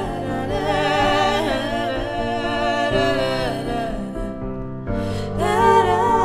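Two female voices singing long, wordless held notes in harmony, with vibrato, over sustained low accompaniment chords; the voices thin out for a moment about four seconds in, then swell again.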